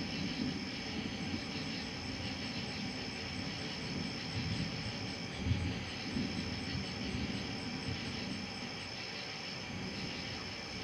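A steady chorus of night insects, high-pitched with an even pulse of about three chirps a second, over a low rumble of distant thunder that swells and fades, loudest about five and a half seconds in.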